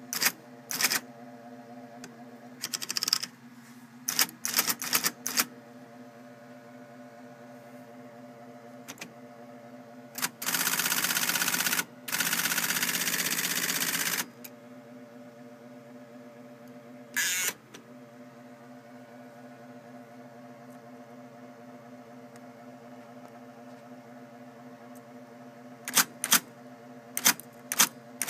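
IBM Selectric II electric typewriter with its motor humming steadily and the typeball striking in short runs of keystrokes. About ten seconds in comes a louder, continuous mechanical clatter lasting roughly four seconds, broken once, then a short burst, and a quick run of strikes near the end.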